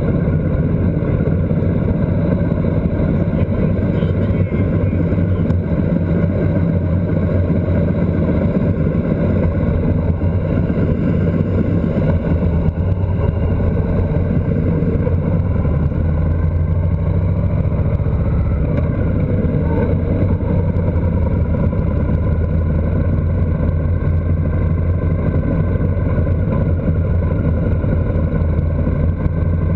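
Motorcycle engine running steadily at cruising speed, mixed with wind noise on the microphone.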